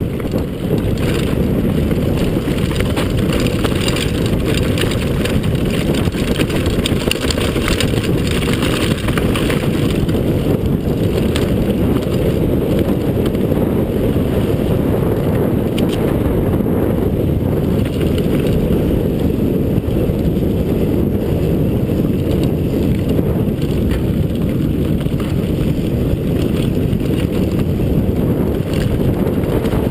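Heavy wind buffeting on the microphone of a camera riding on a mountain bike as it runs down a dirt and gravel trail, mixed with scattered clicks and rattles from the bike and its tyres over stones, busiest in the first half.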